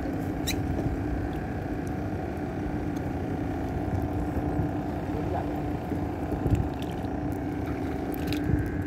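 A boat engine running steadily with an even hum, over wind rumbling on the microphone. A few light clicks come about half a second in and near the end.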